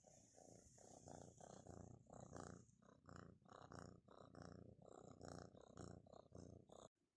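Domestic cat purring faintly in a steady rhythm of short pulses, about three a second. It cuts off abruptly near the end.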